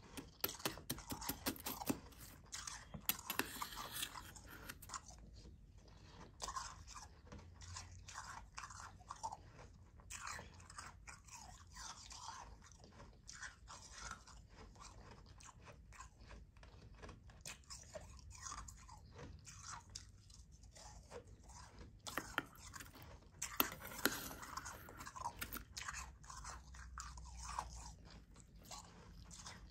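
Soft, powdery ice being chewed, a fine crunching that comes in runs of a few seconds with short pauses between bites.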